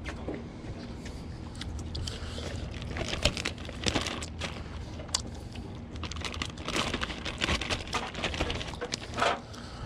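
Plastic zipper storage bag crinkling and crackling in quick irregular clicks as it is pulled open and raw fish fillets are pushed into it.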